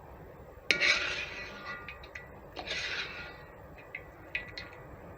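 Kitchenware being handled: two short rasping scrapes, one under a second in and another about two seconds later, with a faint metallic ring, then a few light clicks.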